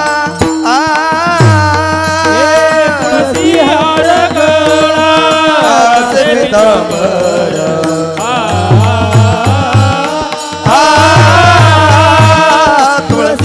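Devotional kirtan singing from a Marathi panchapadi, a voice carrying a gliding melody over steady instrumental accompaniment. It grows louder about three seconds before the end.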